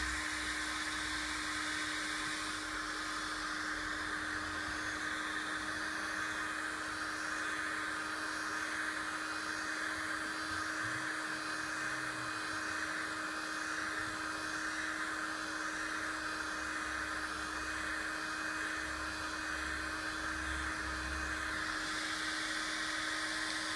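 Electric heat gun running steadily: a constant rush of hot air with a hum, softening a plastic sheet held over it for forming.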